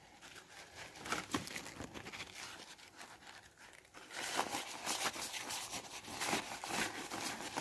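Paper towel crinkling and rubbing as it wipes the bare screen of a Samsung Galaxy Note 8, cleaning off film before a screen protector goes on. Faint rustling at first, louder and busier from about four seconds in.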